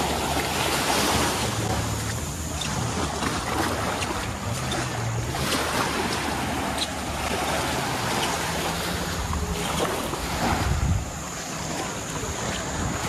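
Sea waves washing on a beach, swelling and easing every few seconds, with wind buffeting the microphone.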